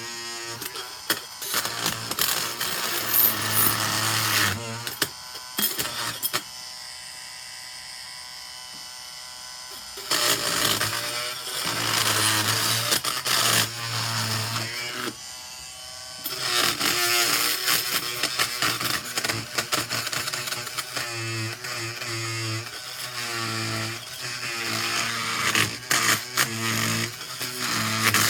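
Dremel Multi-Max oscillating multi-tool with a small saw blade buzzing in runs as it cuts through upholstery staples under layers of fabric, its pitch wavering under load. It pauses twice, briefly: once about six seconds in and again around fifteen seconds.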